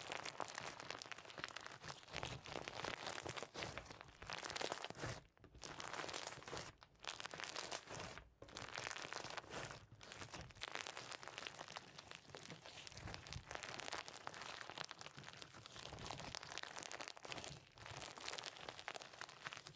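Slime being squeezed and worked by hand, a steady stream of crunchy, crinkling crackles with brief pauses.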